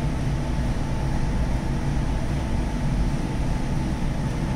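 Steady low drone of a cargo ship's running engine-room machinery, heard inside the engine control room, with an even hiss over it.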